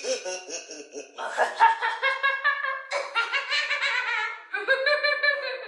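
Children and teenagers laughing and giggling in short, repeated bursts.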